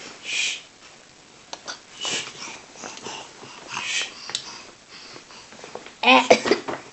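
A baby's breathy, wheezy breaths in short puffs about every two seconds, then a brief pitched vocal sound near the end.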